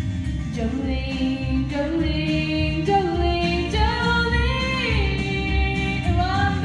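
A young woman singing a country song into a handheld microphone, amplified through stage speakers, over a recorded instrumental backing track. The melody moves through long held and sliding notes.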